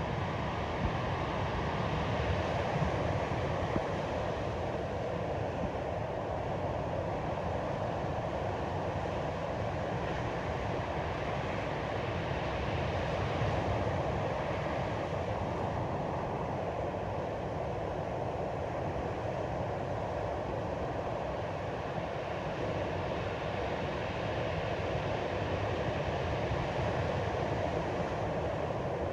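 Steady rushing noise of ocean surf with wind, even and unbroken.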